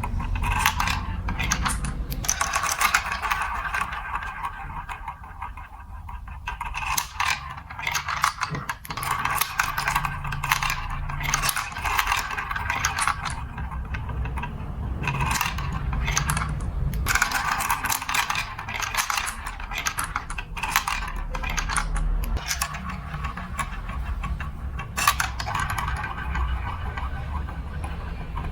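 Marbles rolling and clattering through a plastic building-block marble run: a continuous rattling run with many sharp clicks as they drop and knock against the pieces, over a low rolling rumble.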